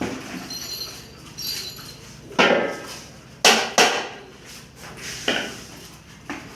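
A few sharp knocks and clatters, the loudest a quick pair about three and a half seconds in.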